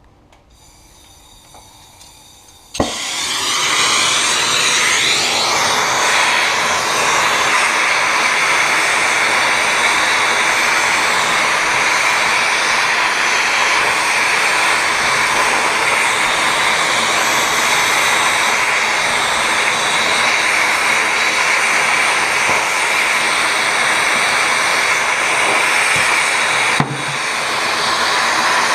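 A loud, steady whooshing machine noise that starts suddenly with a click about three seconds in and runs on evenly, with a brief dip and click near the end.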